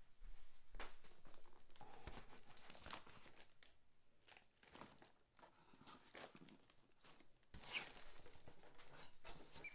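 Faint handling of a cardboard shipping box: a few knocks and scrapes as it is set down on a table, then, about seven and a half seconds in, packing tape torn off and the cardboard flaps pulled open.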